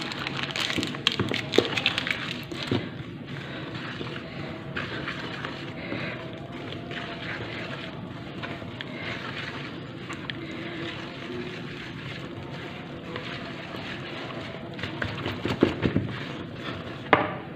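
Dough being mixed in a plastic bowl: a wooden spoon scraping and knocking against the bowl in the first few seconds, then a hand rubbing and working flour into the dough, with a few louder knocks near the end.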